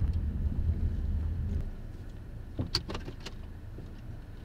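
Low rumble of a car heard from inside the cabin, which stops about a second and a half in. It is followed by a quick cluster of sharp clicks and knocks.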